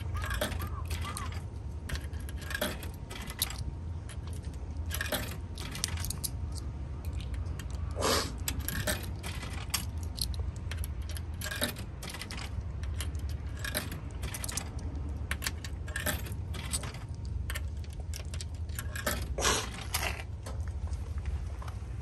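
Coins being fed into a drink vending machine's coin slot and handled at its coin return lever, giving many short metallic clinks and clicks spread irregularly through the stretch.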